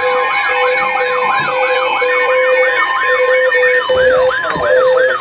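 Emergency vehicle siren in a fast yelp, loud, sweeping up and down about three times a second, with a lower tone pulsing on and off beneath it.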